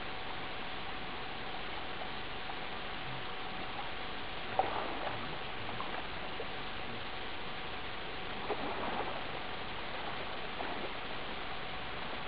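Steady hiss with a constant hum, and faint splashing of a person swimming in river water, twice: about four and a half and about eight and a half seconds in.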